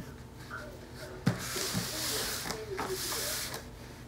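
Heavyweight gift-wrap paper rustling and crinkling as it is handled and folded around a boxed gift, with a single light tap a little over a second in.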